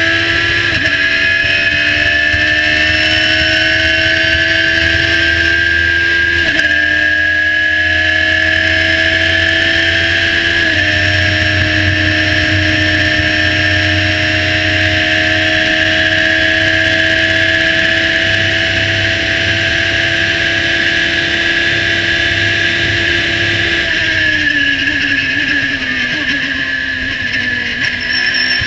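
A Radical SR3 1500 race car's motorcycle-derived four-cylinder engine at full throttle, heard from the cockpit. Its note climbs and drops sharply with quick upshifts about 1, 6.5 and 11 seconds in, then holds high revs on the straight. From about 24 seconds in, the pitch falls away as the car brakes and downshifts for a corner. Wind and road rush run steadily underneath.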